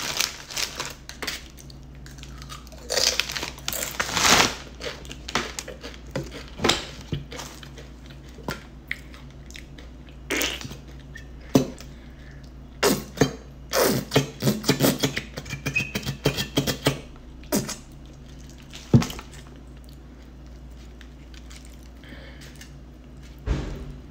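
A plastic snack-chip bag crinkling and chips crunching as they are shaken out and handled, then a squeeze bottle of sauce being squeezed over the food. There is a string of short, irregular crinkles, crunches and clicks over a low steady hum.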